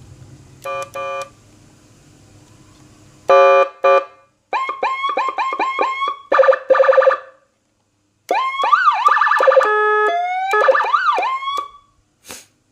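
Landun electronic siren, serviced after its transformer burnt out, running through its tone patterns as a sound test. It gives two short beeps, a horn blast, a fast yelp of rising sweeps and a hi-lo two-tone, then after a brief pause a rising wail and fast warble. It stops near the end with a click.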